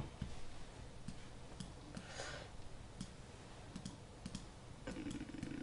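Faint computer mouse clicks, a few scattered single clicks.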